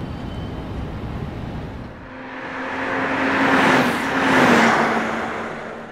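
A car drives past: its tyre and engine noise swells to a peak about four seconds in and then fades, the hum dipping slightly in pitch as it goes by. Before it, a low rumble.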